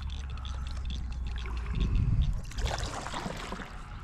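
Wind rumbling on the microphone with water trickling and splashing around a kayak, the splashing louder over the last second and a half.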